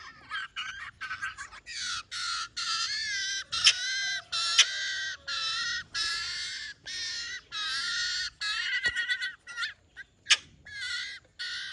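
Fledgling Eurasian jays begging for food, a long series of calls each about half a second long, repeated almost without pause for most of the stretch, with shorter, scattered calls at the start and near the end.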